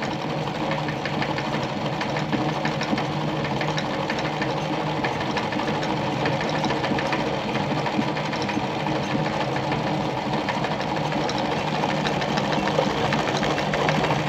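Treadle-driven Singer 319K sewing machine running steadily, stitching a disc-cam decorative zigzag pattern through fabric with a fast, even rhythm of needle strokes.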